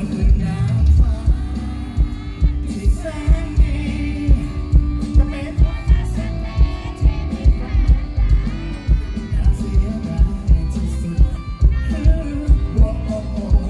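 Live rock-pop band through a concert sound system: a male vocalist singing over electric guitar and band, with a steady heavy beat of about two thumps a second.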